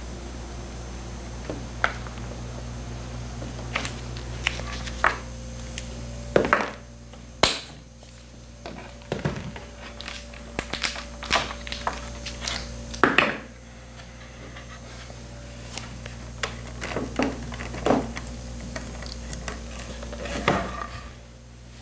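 Scattered taps, clicks and scrapes of hand tools and materials being handled at a workbench, over a steady low electrical hum.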